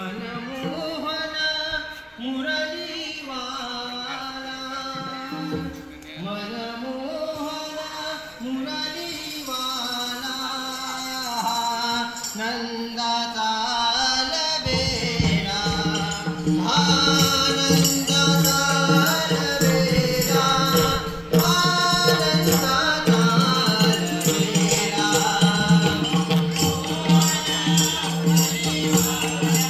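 Devotional singing with music: a solo voice sings a gliding melody. About halfway through, a steady drone and percussion join, and the music grows louder.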